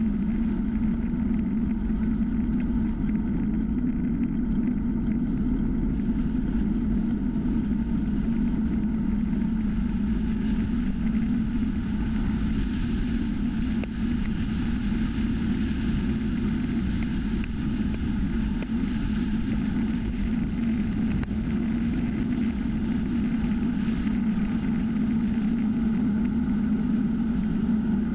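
Steady wind and tyre rumble from a time-trial bicycle riding fast on asphalt, picked up by a GoPro mounted on the bike, with a constant low hum.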